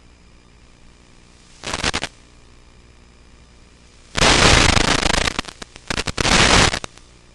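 Loud bursts of radio static over a faint steady hiss: a short burst about two seconds in, then a longer choppy one from about four seconds to nearly seven. It is the noise of an analog FPV video link's audio channel as the signal breaks up.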